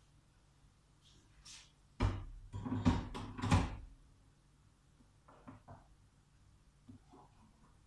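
Kitchen handling noise: a sudden bang about two seconds in, then a couple of seconds of clatter, and a few lighter knocks later on.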